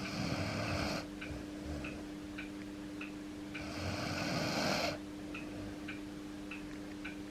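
Ageing Akita dog snoring in his sleep, two loud snores about three and a half seconds apart, each lasting about a second.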